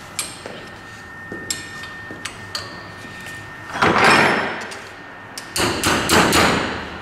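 Light metal clicks of a hex key working the bolts of a wheel balancer's universal flange, then two louder scraping rasps, about four and six seconds in, as the bolts are tightened.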